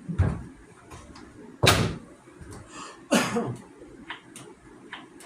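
Hard clunks and clicks of a cordless chainsaw and its battery being handled: three loud knocks, the second loudest, then a few lighter clicks. The saw's motor is not running.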